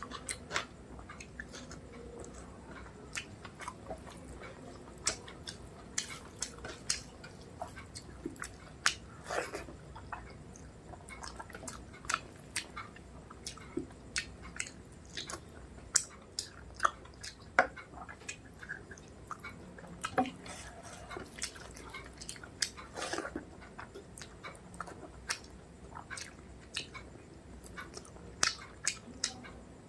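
Close-up chewing and wet mouth sounds of someone eating rice with thin mutton curry, with frequent irregular sharp smacks and clicks.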